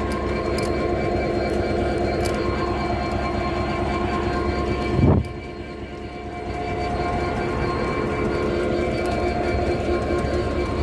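A stationary Class 66 diesel locomotive's two-stroke V12 engine running with a steady hum. About five seconds in there is a brief loud low burst, then the engine sound drops and builds back up over a second or so.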